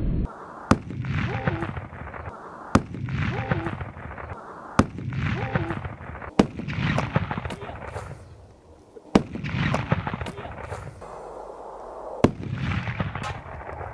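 Firecrackers going off: six sharp bangs a few seconds apart, each followed by about a second of rushing noise.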